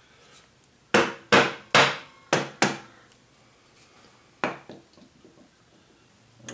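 Knocks seating a scooter engine's side cover onto its locating dowels over the starter bendix: five sharp knocks in quick succession about a second in, then one more a couple of seconds later.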